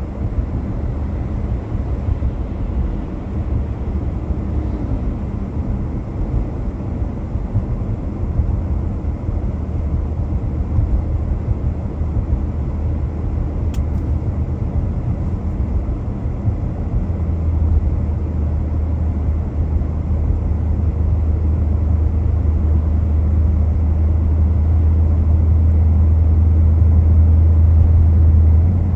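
Car driving along a city street: a steady low rumble of road and engine noise that grows louder and deeper from about two-thirds of the way through. A single faint click comes near the middle.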